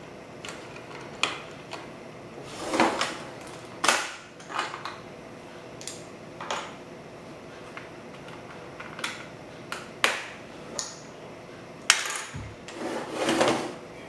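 Plastic Lego bricks clicking and knocking as they are handled and set down on a wooden table, with a couple of longer rattling scrapes, one a few seconds in and one near the end.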